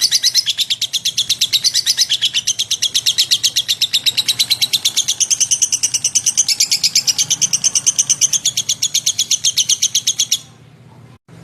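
A lovebird singing a long, unbroken run of rapid, sharp chirps, several a second, that stops abruptly about ten seconds in, leaving a faint low hum.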